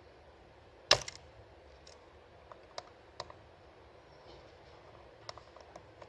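One sharp click about a second in, then a few small faint clicks and taps: an iPhone 6 display assembly being pried up and unclipped from the phone's frame.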